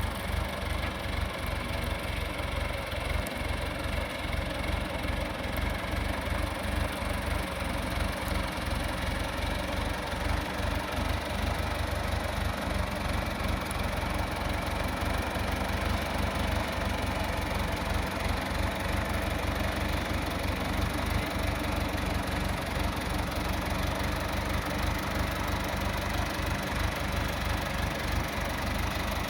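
An engine idling steadily, with an even, low throb.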